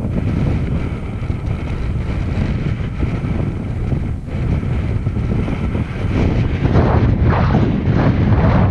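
Strong wind buffeting a helmet camera's microphone, a loud low rumble that gets gustier and louder from about six seconds in.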